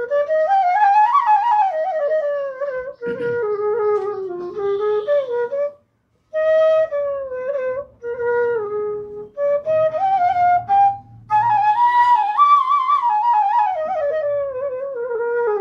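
Bamboo bansuri (Indian transverse flute) played solo: a slow melody in several phrases with short breaths between, the notes gliding up and down.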